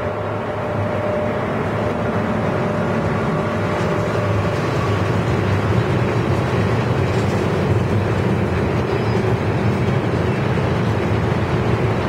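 Heavy freight train hauled by a VR Sr1 electric locomotive rolling slowly past, followed by its long string of covered wagons: a steady rumble of wheels on the rails. A faint steady tone fades out about five seconds in.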